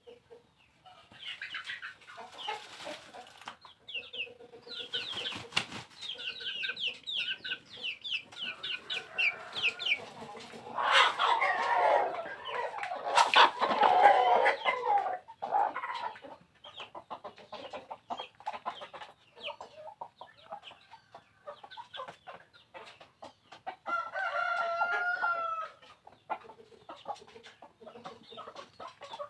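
Bangkok game chickens clucking, with runs of short, high peeping calls over the first several seconds and louder calling around the middle. Near the end a rooster crows once, holding a steady pitch for about two seconds.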